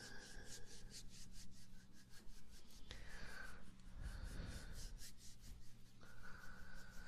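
Quick repeated rubbing strokes close to the microphone, about four or five a second, made as an ASMR trigger.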